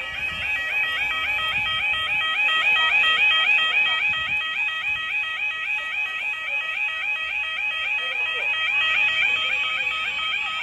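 UK level crossing yodel alarm sounding: a rapidly repeating warbling tone, several sweeps a second. It is the audible warning that the barriers are about to come down for an approaching train.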